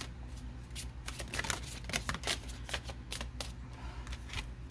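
Tarot cards being shuffled by hand: a run of quick, irregular papery clicks, over a steady low hum.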